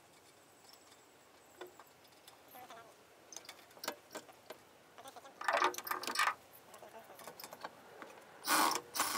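Small metallic clicks and clinks of tools and hardware at the shock absorber's top mount in the strut tower, with two louder rattling bursts, one about halfway through and one near the end.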